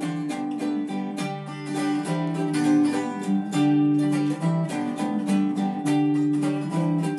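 Strummed acoustic string instrument playing chords in a brisk, even rhythm: an instrumental passage between sung lines of a folk song.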